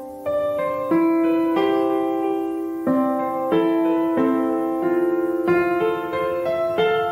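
Background piano music: gentle sustained notes and chords, a new note struck about every half second to a second.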